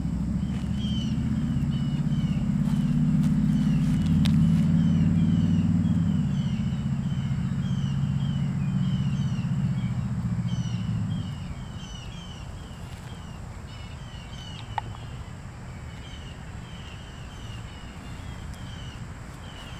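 Low engine rumble of a vehicle going by, swelling and then fading out about eleven seconds in, under small birds chirping over and over throughout. A sharp click sounds about four seconds in and another near fifteen seconds.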